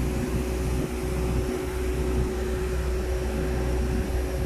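Steady mechanical hum of machinery running, with a deep drone and one constant mid-low tone throughout.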